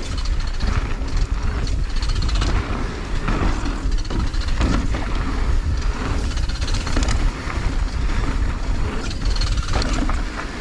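Mountain bike rolling down a dirt trail: wind buffeting the camera microphone and tyres rumbling on the ground, with short knocks and rattles from the bike over bumps.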